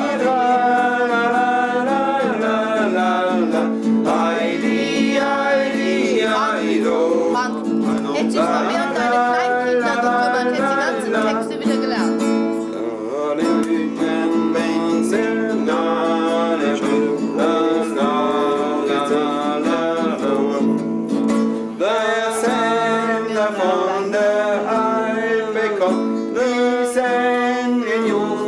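Acoustic guitar accompanying singing in a folk song (Volksmusik), the voice wavering and held over the plucked chords, with short breaks between phrases.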